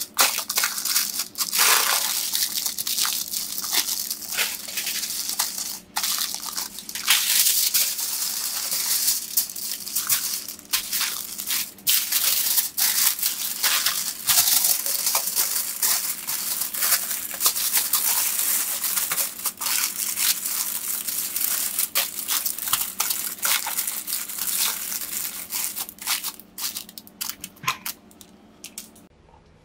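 Aluminium foil crinkling and crackling as hands fold and press it tightly around pork ribs. The crinkling thins out and gets quieter near the end.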